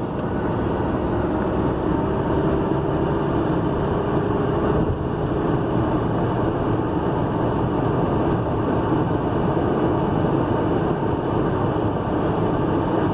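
A vehicle driving at a steady speed: engine and tyre noise heard from inside, an even drone with no change in pace.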